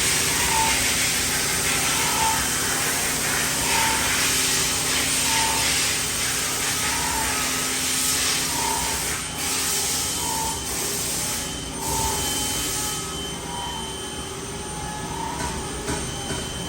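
Smart VX 350-5AX five-axis machining center running: a steady hiss over several steady hums, with a short tone repeating a little more than once a second. The hiss drops off about two-thirds of the way through.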